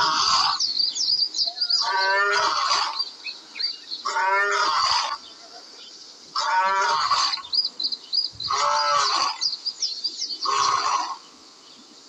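An animal call sound effect repeated about every two seconds, each call about a second long with a wavering, pulsing pitch. Birds chirp continuously behind it in a jungle ambience track.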